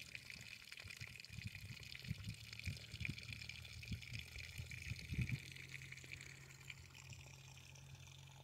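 Faint, irregular lapping of small waves against the lake's rocky edge, with a low steady hum coming in about halfway through.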